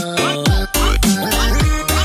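Background music with a steady beat; a deep bass line comes in about half a second in.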